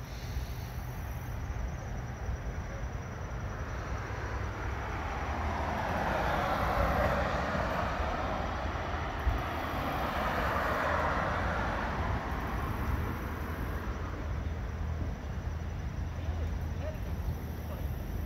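Steady low rumble of traffic, with one vehicle passing that swells up from a few seconds in, stays loud through the middle, and fades away about ten seconds later.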